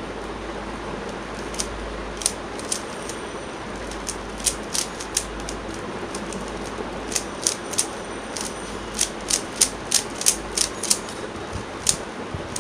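Plastic 3x3 Rubik's cube being turned by hand, its layers clicking with each turn. The clicks are few at first and quicken to about three a second in the second half, over a steady hiss.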